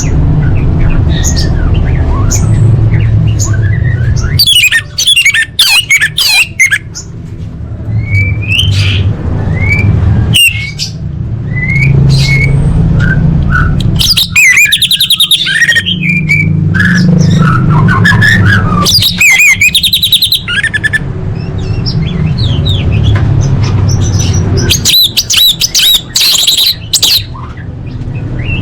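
Orange-headed thrush singing a long, varied song of fast trills and whistled phrases, with a steady low rumble underneath.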